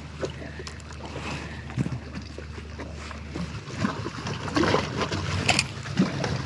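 Scattered knocks and clicks of fishing gear being handled aboard a boat, over a low steady hum that cuts off about three and a half seconds in. The knocks grow busier and louder after that.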